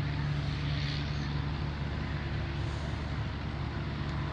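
A motor running with a steady low hum under a constant hiss.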